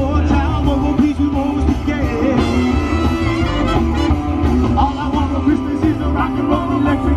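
Live swing band playing an up-tempo rock-and-roll number, with a saxophone section, electric guitar, upright bass and drums, and a singer's voice in places.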